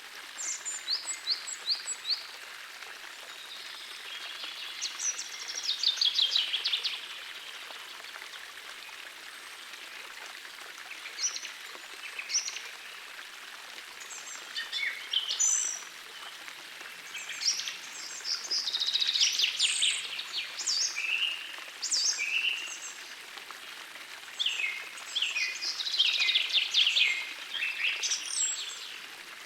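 Songbirds singing over the steady rush of a forest stream, with several loud, fast trills among the shorter calls.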